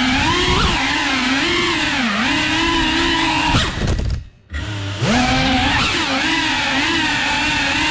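FPV racing quadcopter's brushless motors whining, the pitch rising and falling constantly with the throttle. About four seconds in the motors cut out for a moment, then spool back up with a rising whine.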